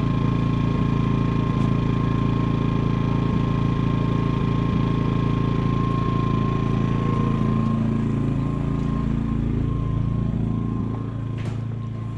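Sportsman GEN2200DFi inverter generator's small engine running steadily on propane, a low even hum with a thin whine over it. It gets a little quieter about ten seconds in, and a sharp click comes near the end.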